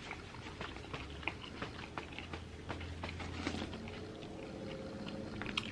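A person chewing food close to the microphone: many small wet mouth clicks and smacks, scattered unevenly, over a steady low hum.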